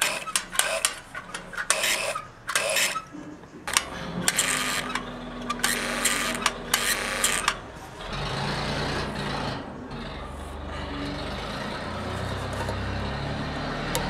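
Salika sewing machine with an add-on electric motor: first a run of short, rough scraping bursts from its mechanism, then, from about halfway, a steady low motor hum.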